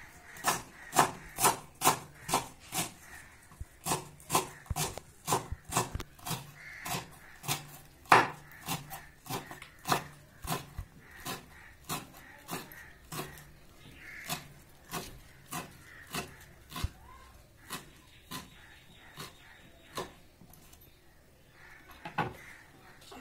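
Chef's knife chopping green amaranth leaves on a wooden cutting board: a steady run of knocks, about two or three a second.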